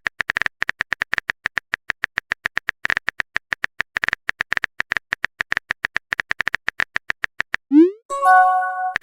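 A fast, even run of short clicks, about ten a second, like a typing sound effect. Near the end it breaks off for a rising blip and a bright chime with several notes.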